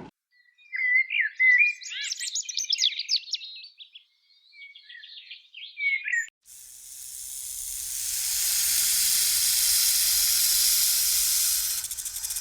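A bird's rapid chirping and warbling calls, sliding up and down in pitch, for about six seconds. Then a steady high hiss swells up and holds.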